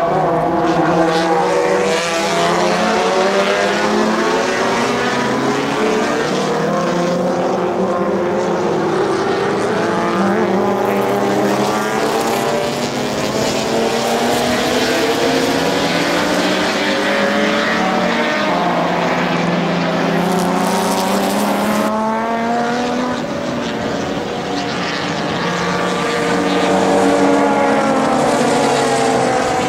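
Several racing car engines running hard at once, their overlapping notes climbing and dropping in pitch as the cars accelerate, shift gears and pass by.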